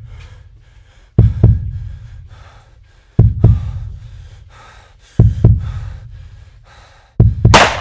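A slow, deep double-thump heartbeat, one lub-dub pair about every two seconds, under heavy breathing through a gas mask. Near the end the last beat comes with a loud, sharp hissing burst.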